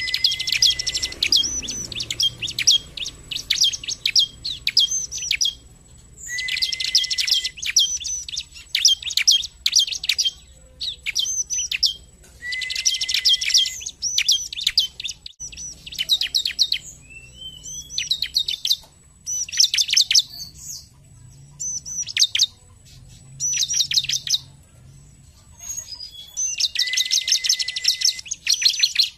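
Bar-winged prinia (ciblek) singing: loud phrases of rapid, high chirps, each one to two seconds long and repeated every few seconds with short pauses between, some opening with a brief steady note.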